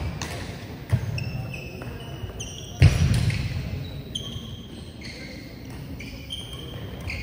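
Court shoes squeaking on a gym floor in short high chirps, with scattered knocks and one loud sharp smack about three seconds in, in a large echoing sports hall.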